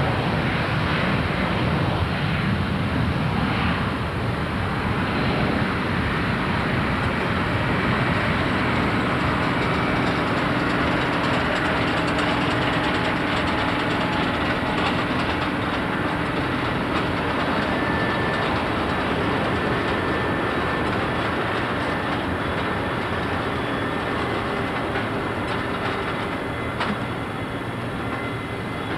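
Boeing 747-230B freighter's four jet engines at takeoff power during the takeoff roll and liftoff, a steady loud roar that grows slightly fainter near the end as the jet moves away.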